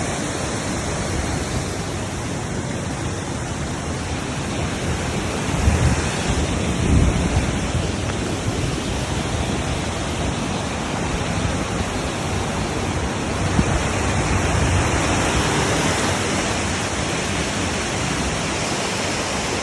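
Waterfall rushing close by: a steady, loud roar of falling water, with a few low rumbles about six to seven seconds in.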